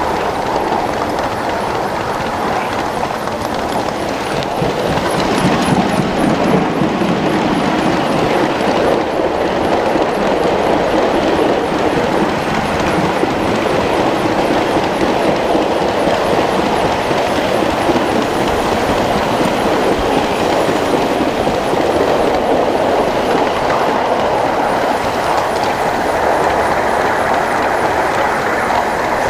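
A 1-inch-scale Little Engines Pacific live steam locomotive and its ride-on train running along the track: steady rolling wheel-on-rail noise, a little louder from about five seconds in.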